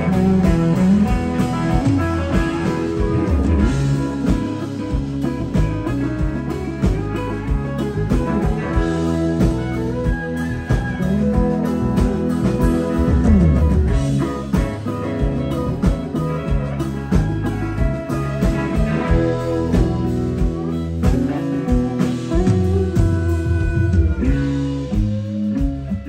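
Live country band playing an instrumental passage: electric guitar lead with bent notes over a second guitar, bass and drums.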